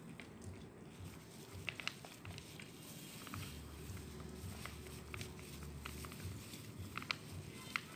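Dog eating out of a metal bowl: scattered sharp clicks and smacks of mouthfuls, with food and teeth knocking on the bowl.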